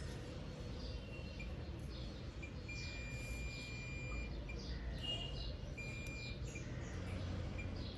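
Short high chirps and whistles, a couple of them held for about a second, over a low steady hum.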